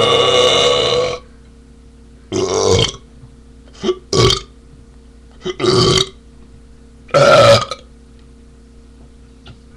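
A man belching, the gas coming up from a big can of carbonated beer drunk in one go. A long, loud burp trails off about a second in, followed by a run of five shorter burps spaced a second or so apart.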